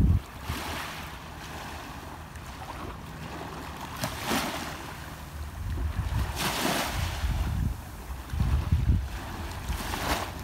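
Small waves washing up the shore and drawing back, swelling every few seconds, with wind buffeting the microphone.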